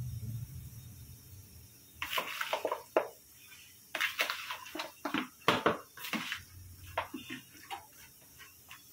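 Steel spoon and metal plate-lid clinking and knocking against a cooking pot, a dozen or so sharp separate strikes from about two seconds in, after a low steady hum at the start.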